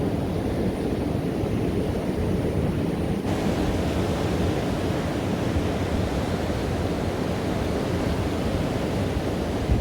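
Strong onshore wind buffeting the microphone over surf breaking on a beach: a loud, steady rushing noise, turning brighter and hissier about three seconds in.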